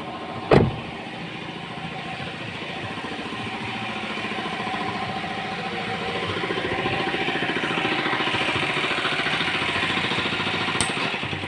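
A sharp click, then a car engine running steadily and growing gradually louder, with a small click near the end.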